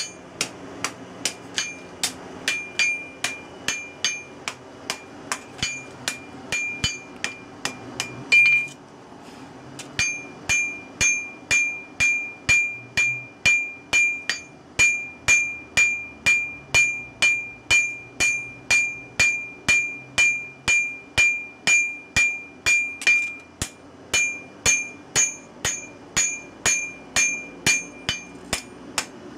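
Hand hammer beating red-hot leaf-spring steel on an anvil in steady, rapid blows, about three a second, each with a bright metallic ring: a sickle blade being forged out. The hammering stops for about a second and a half after a harder blow some eight seconds in, then carries on at the same pace.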